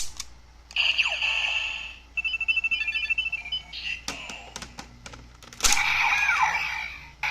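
Electronic sound effects from a Kamen Rider Kiva Ridewatch toy's small speaker: a chiming tone, then a short tune of beeps. Plastic button clicks follow about four seconds in, then a loud click and an electronic tone with a falling glide near the end.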